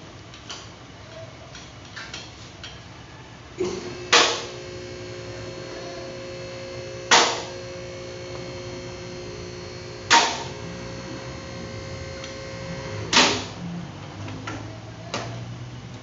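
Four loud, sharp metallic knocks about three seconds apart, from work on a lifted car's underside during transmission removal. A steady hum runs under them, and light clicks of hand tools come before and after.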